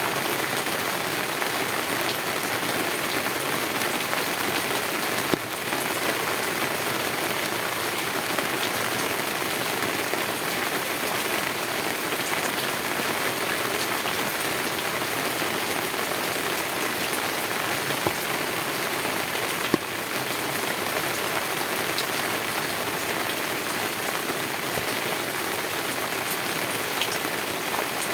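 Heavy rain falling steadily on a tin roof, an even, dense hiss of drops, with a few sharper single ticks standing out now and then.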